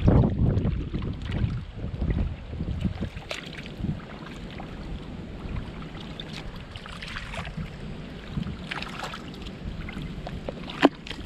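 Shallow water splashing and mud squelching as bare feet wade and hands dig in a muddy flat, with wind rumbling on the microphone. The splashing is loudest at the start and comes in irregular bouts, and there is one sharp knock near the end.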